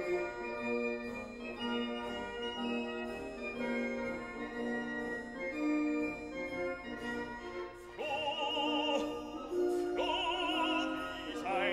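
Classical background music: sustained organ-like chords, joined about eight seconds in by operatic singing with strong vibrato.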